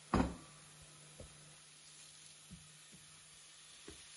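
Shredded savoy cabbage tipped by hand from a colander into a stainless steel pot of sautéing vegetables: a loud thump just after the start, then three softer knocks spread through the rest, over a faint sizzle of frying.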